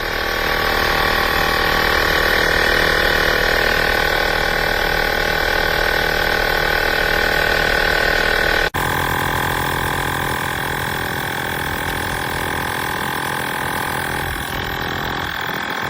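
Blestan cordless tire inflator's small air compressor running steadily, a loud motor hum with a fast pulsing rattle. It cuts out for an instant about nine seconds in and goes on a little quieter.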